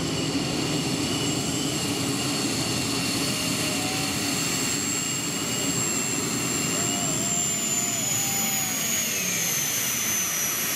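Multi-turbine modified pulling tractor under full power dragging the weight sled: a steady high turbine whine over a dense rumble, with the whine slowly falling in pitch over the last few seconds.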